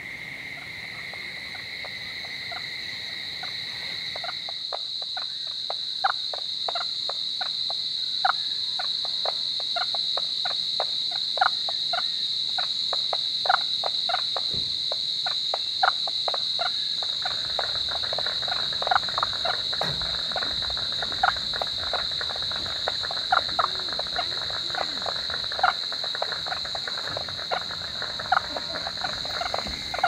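Dusk chorus: a steady high-pitched insect drone, with a second, lower insect trill for the first few seconds. Over it come many short, sharp animal calls that grow denser from just past halfway.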